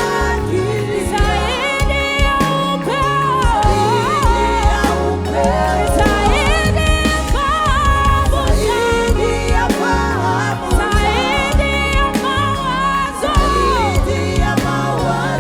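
Live gospel worship band playing, with bass and drums under singing voices that hold and bend long notes.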